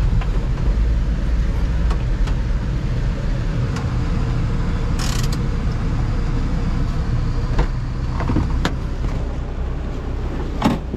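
Daihatsu mini pickup's engine running, heard from inside the cab, with scattered light ticks. A sharp click near the end as the truck's door is opened.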